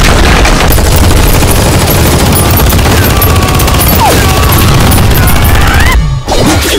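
Action film trailer soundtrack: a loud, dense barrage of gunfire and crash effects mixed with music, dropping out briefly about six seconds in.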